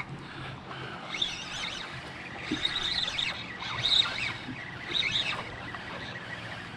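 Birds calling: a series of short, high chirping calls, over a faint low steady hum.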